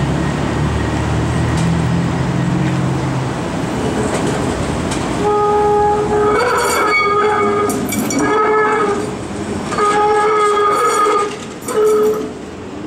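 PCC streetcar passing with a low rumble. From about five seconds in, its wheels squeal on the curve in a string of steady high-pitched stretches, each about a second long with short breaks between.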